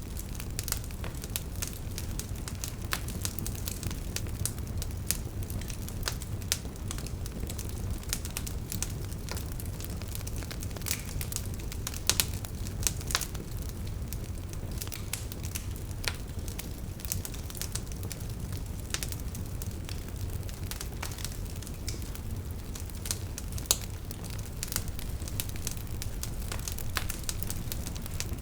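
Wood fire burning in a fireplace: a steady low rumble of flames with irregular crackles and snaps from the logs, a few louder pops among them.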